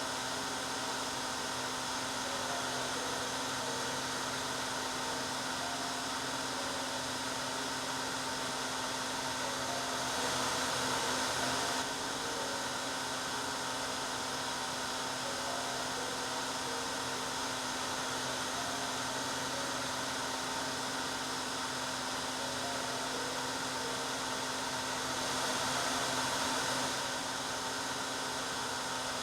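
Electric hair dryer running steadily: a constant rushing blow with a motor hum underneath, swelling slightly louder for a couple of seconds twice.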